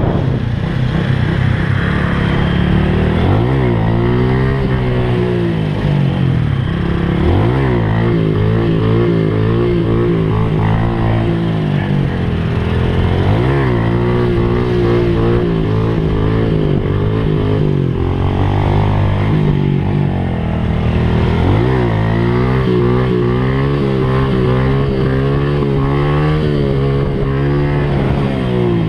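Small single-cylinder motorcycle engine of a Honda Pop 100 being ridden hard on a dirt trail, revving up over and over with its pitch climbing and dropping back as the rider shifts through the gears.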